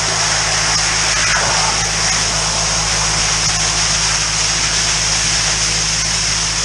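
High-pressure drain jetter at work: the jetting unit's engine runs steadily under a loud, constant hiss of water from the jet hose in the drain, with water flowing through the manhole.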